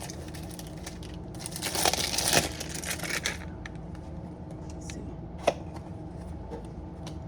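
Packaging of a new cologne box being torn and crinkled open, for about two seconds, followed by a few small ticks and one sharp click about five and a half seconds in.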